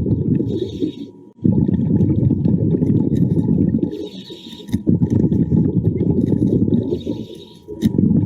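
A diver breathing through a regulator underwater, three breaths: a short hiss on each inhale, then a long bubbling rumble as the exhaled air bubbles out.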